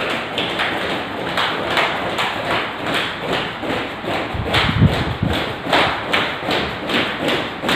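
Bare feet of three people jogging in place with high knees on interlocking foam floor mats: a steady rhythm of soft thumps, about two and a half a second. A deeper thud comes about four and a half seconds in.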